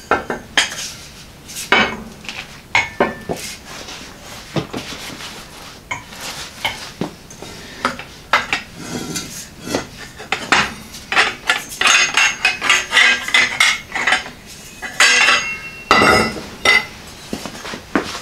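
Hand EMT conduit bender and thin-wall steel conduit being worked on a concrete floor: irregular metallic clanks and clinks as the tube is seated and levered in the bender's shoe, busiest in the middle, with a heavier clank near the end.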